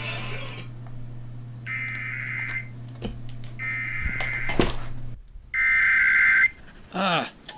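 Emergency Alert System SAME header heard over FM radio: three bursts of buzzy digital data tones, about a second each with a second's gap between them, encoding a Required Monthly Test alert.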